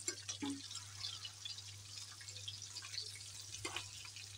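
Chicken tikka pieces shallow-frying in hot oil, a steady crackling sizzle, with metal tongs clicking against the pan a few times as pieces are turned over.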